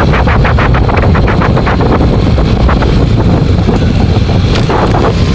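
Wind buffeting the microphone over a steady low rumble from a vehicle in motion on a road, with a quick run of faint regular ticks in the first two seconds.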